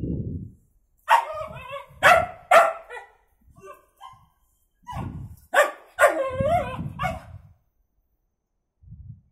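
A dog barking at a cat it has cornered, in two flurries of sharp barks, about a second in and again after five seconds, with low growling between them.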